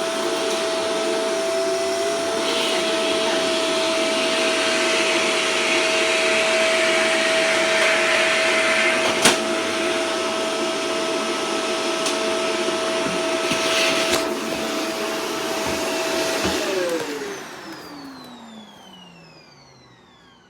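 Vacuum cleaner running with a steady motor whine and rushing air, with a single sharp click about nine seconds in. Near the end it is switched off and the motor winds down, its whine falling in pitch as it fades.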